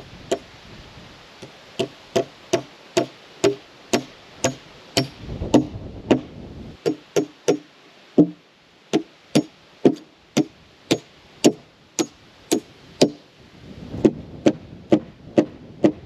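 Hammer driving nails into a frame of freshly milled green lumber: a run of sharp blows about two a second, with a few short pauses between nails.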